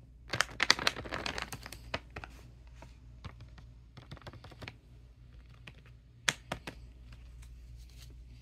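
A paper bag being handled by hand, its paper crinkling and crackling: a dense run of crinkles in the first two seconds, then scattered rustles and taps, with one sharp crackle about six seconds in.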